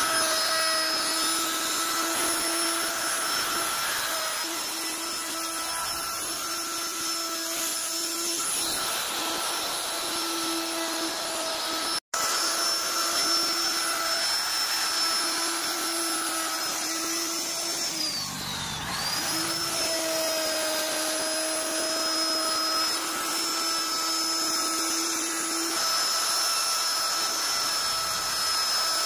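Handheld electric plunge router running at high speed with its bit cutting a relief pattern into a wooden panel, a steady high whine. About two-thirds of the way through, the pitch briefly drops and climbs back up.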